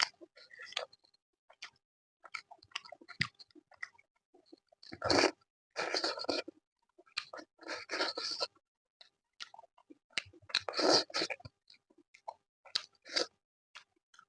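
Close-miked chewing and wet mouth sounds of a person eating chicken curry with rice and naan in big bites, with many small clicks and several louder bursts of chewing.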